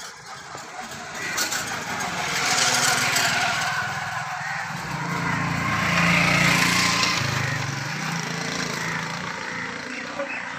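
A motor vehicle's engine running close by, with a rushing noise over it that swells about two seconds in, peaks again around six to seven seconds, and then eases off, as if the vehicle passes.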